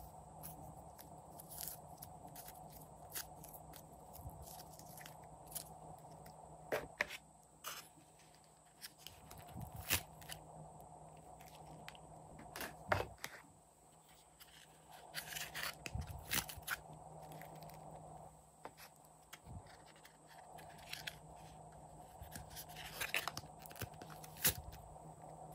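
Hands handling small decorations and a plastic tray of clay over a glass bowl of slime: scattered light taps and clicks, with short stretches of scraping.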